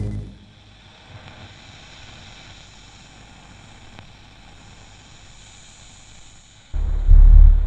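Electronic ambient drone. A faint steady hiss with a few thin high tones is followed near the end by a loud, steady low drone that comes in abruptly.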